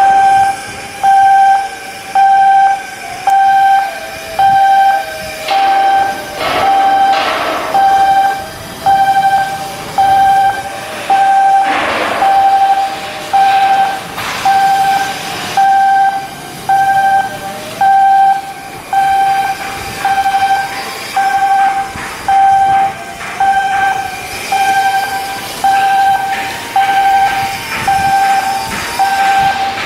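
Electronic warning beeper sounding about once a second with a steady mid-pitched tone, over scattered short hisses and knocks.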